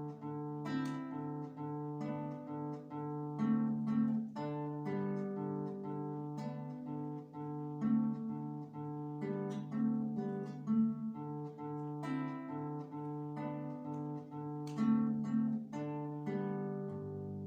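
A waltz played as an instrumental solo: a moving melody of separate notes over a low bass note that is held almost throughout.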